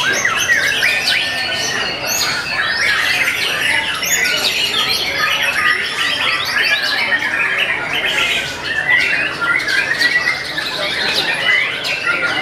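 Several caged white-rumped shamas (murai batu) singing at once, a dense unbroken chorus of rapid, varied whistled notes and trills.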